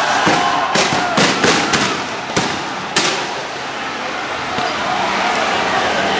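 Tear gas rounds going off: a quick series of about six sharp bangs in the first three seconds, over a steady din of street noise.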